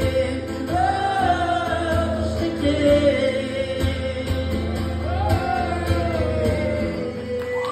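Live solo acoustic performance: acoustic guitar accompaniment under a long, wavering wordless melody line that sinks in pitch near the end.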